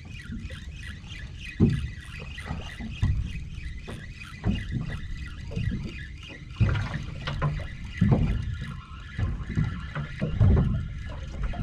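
Water lapping and slapping against a small open boat's hull, with a low rumble of wind on the microphone and several louder slaps, while a spinning reel is cranked against the load of fish on a sabiki rig.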